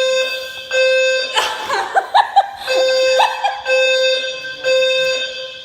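Fire alarm sounding in long, evenly repeating beeps, about one a second, with people laughing over it for about a second from a little over a second in.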